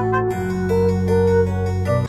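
Instrumental background music: held low notes under a short stepping melody, with a change of chord about a third of a second in.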